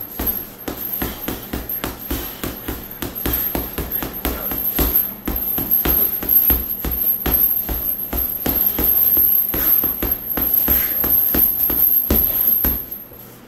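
Boxing gloves punching an Everlast heavy bag in quick combinations: a run of sharp thuds, several a second in short flurries, which stop near the end.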